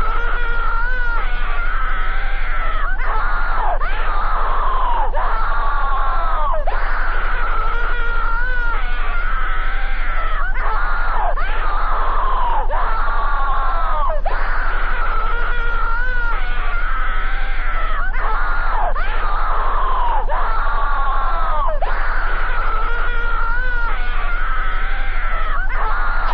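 Harsh, distorted screaming-like cries, bending in pitch and starting over about once a second, over a steady low hum: the disturbing soundtrack of a horror cartoon clip.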